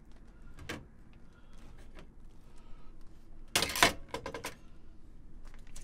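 A plastic vacuum-seal bag crinkling as pieces of cooked chicken are dropped and shaken into it. The crinkling comes as a short, loud cluster of rustles a little past halfway, with a few light clicks and taps around it.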